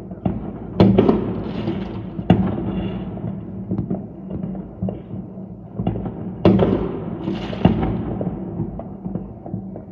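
A run of sharp knocks and clatters, four of them loud and the rest lighter taps, over a steady low hum.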